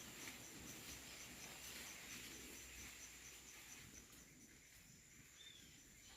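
Faint natural outdoor ambience with a steady high-pitched insect trill that pulses about four to five times a second. A single short bird chirp comes near the end.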